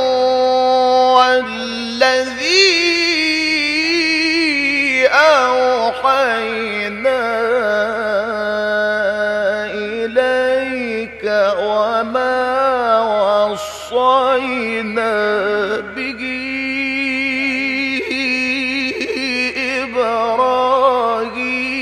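Male Quran reciter's voice in melodic tajwid recitation, amplified through a microphone. He draws out long, wavering, ornamented notes with slides in pitch, the drawn-out melodic passages of a mujawwad reading.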